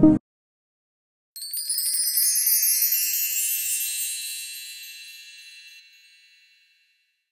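Background music cuts off right at the start; after about a second of silence, a cascade of high, tinkling chimes rings out and slowly fades away over about five seconds.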